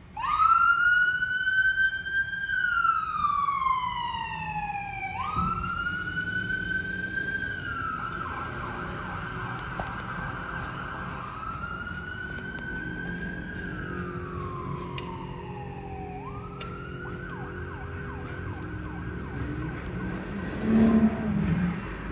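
Electronic wail siren on a fire department medic vehicle, rising and falling slowly in cycles of about five seconds and sometimes holding its high note. A short, loud low-pitched horn blast sounds about a second before the end.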